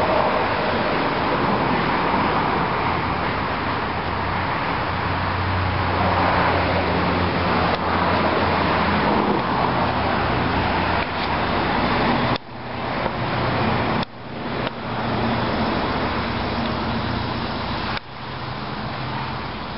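Road traffic: a car engine's low hum over steady road noise, louder in the first half and broken by a few sudden brief drops in level in the second half.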